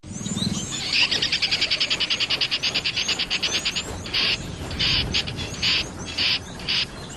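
Wildlife ambience: a fast chattering call of about a dozen pulses a second for nearly three seconds, then a run of short separate bursts at the same pitch, with faint high bird chirps behind.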